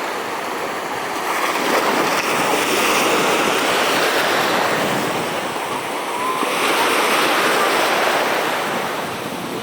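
Sea water washing and splashing, with wind buffeting the microphone; the rush swells up twice.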